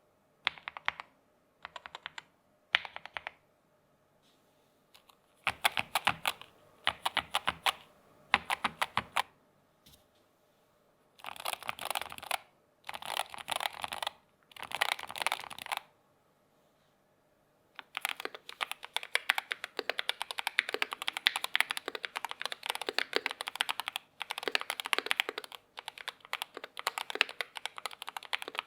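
Typing on a Keychron K2 HE keyboard with magnetic switches: short runs of keystrokes broken by pauses of a second or two, then steady fast typing from about two-thirds of the way in.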